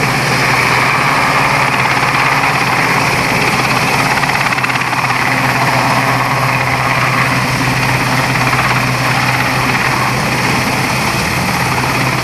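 Westland Sea King search-and-rescue helicopter hovering low, its rotors and twin turboshaft engines running loud and steady.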